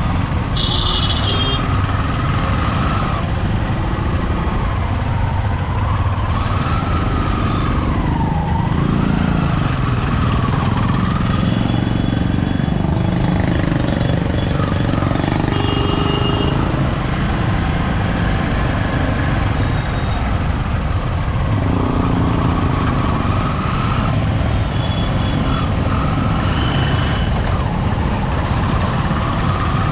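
Yamaha R15 M motorcycle's single-cylinder engine running at low speed in slow traffic, its pitch rising and falling, over steady road and wind noise. Short high beeps sound a few times.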